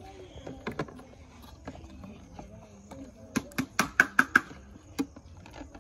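Plastic plates and bowls knocking together as they are handled: a quick run of about half a dozen sharp clacks a little past the middle, with a few fainter knocks before and one after. Children's voices chatter faintly underneath.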